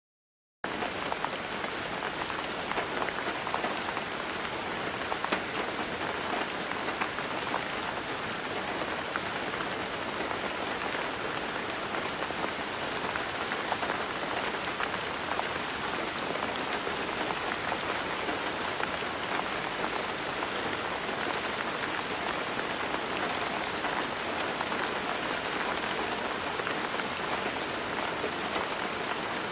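Steady rain falling, a dense patter of raindrops on a surface, starting abruptly about half a second in.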